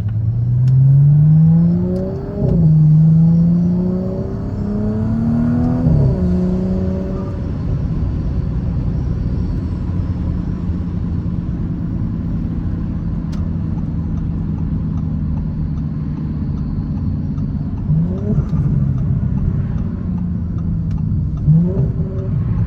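Audi B9 S4's turbocharged 3.0-litre V6, on a stock exhaust with a catalytic-converter delete, revved up twice in the first six seconds and let fall back to a steady idle, then blipped twice briefly near the end. The Stage 1 ECU tune makes the exhaust crackle as the throttle closes.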